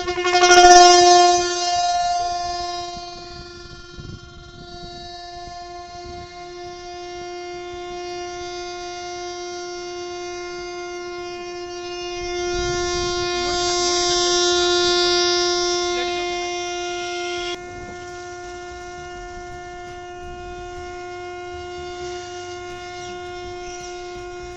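A toy whistle fitted to a motorcycle's exhaust silencer, blown by the exhaust gas, sounds one unbroken, steady-pitched tone like a train horn. It swells louder about a second in and again from about twelve to seventeen seconds in.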